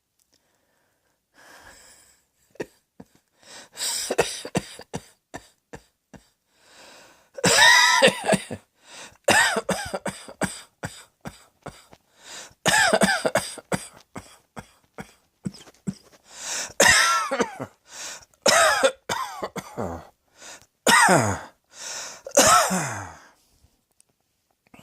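A person coughing over and over. Fainter short coughs come first, then loud coughs every couple of seconds from about seven seconds in, several with a hoarse, voiced edge.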